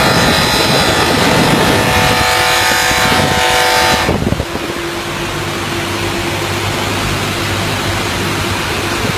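Polishing machine running with a Scania 164 engine cover pressed against its spinning buffing wheel, a dense whine made of many tones. About four seconds in the cover comes off the wheel, and only the machine's steadier motor hum and rushing noise go on.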